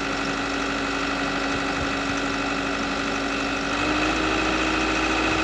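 IHI excavator's diesel engine running steadily with a constant whine over it; its pitch and level step up slightly about four seconds in.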